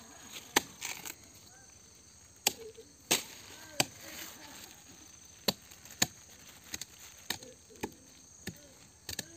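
A blade chopping into the soft, fibrous pith of a rotting sago palm stump to dig out sago grubs. The strikes are sharp and irregular, about one a second.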